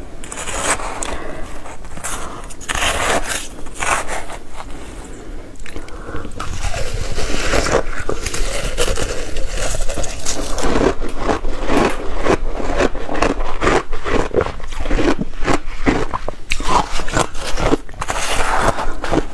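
Close-miked eating of shaved ice topped with passion fruit pulp: crisp crunching and chewing of icy mouthfuls, with a metal spoon scraping into the ice. The crunches come sparsely at first and run thick and fast from about six seconds in.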